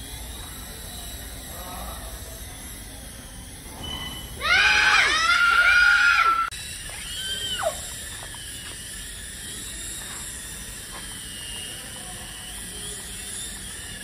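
Small toy helicopter rotors whirring steadily with a faint high motor whine. About four seconds in, a voice squeals loudly with rising and falling pitch for about two seconds, with a shorter squeal a second later.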